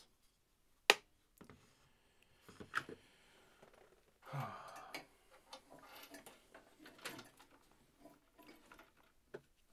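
Scattered clicks, taps and rustles of a soldering station's base unit and its tangled cables being handled on a workbench, with one sharp click about a second in the loudest.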